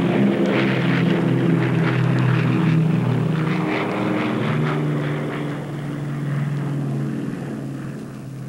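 A steady low engine drone with a hiss over it, like a propeller aircraft, fading over the last few seconds.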